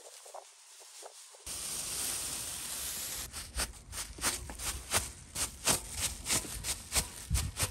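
Crumpled plastic film rustling against the painted steel of a motorcycle fuel tank. A steady hiss of rubbing starts about a second and a half in. It gives way to quick crinkly dabs, about three a second, as the plastic is pressed repeatedly onto the paint.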